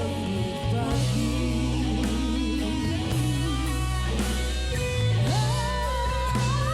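Live rock band playing an instrumental passage: electric guitar over bass and drums, with a held, wavering lead note from about five seconds in.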